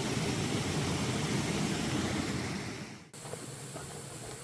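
Water running steadily with a rushing sound that fades and cuts off about three seconds in, leaving a quieter background with a few faint clicks.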